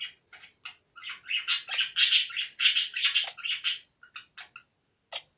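Cockatiel sneezing in a rapid series of short, sharp puffs, densest in the middle, then a few scattered ones and a last one near the end. The sneezing comes from medicine that got into its airways.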